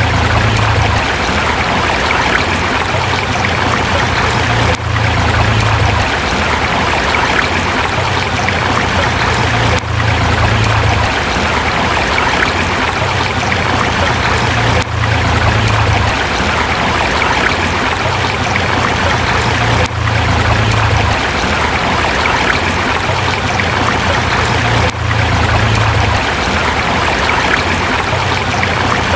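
River water rushing and splashing over rocks with a steady, full rush and an undertone of low rumble. The level dips briefly about every five seconds.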